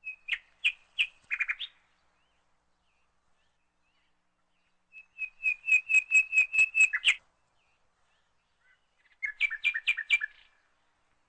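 A bird chirping in three runs of quick, sharp, repeated notes: one at the start, a longer and louder run of about ten notes midway, and a shorter run near the end.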